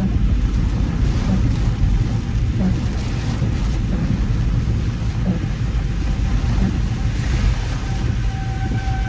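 Heavy, steady low rumble of a car driving through a thunderstorm with heavy rain and strong wind, with a soft knock about every second and a half. Near the end a tornado siren's steady wail comes in faintly over it.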